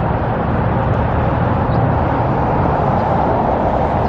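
Steady outdoor rumble and hiss with no distinct events, like road traffic and wind in a city.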